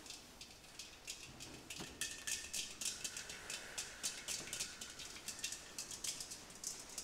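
Fingertips and nails tapping and scraping on a large glass demijohn: a quick, irregular patter of light ticks, with a faint steady tone held for a few seconds in the middle.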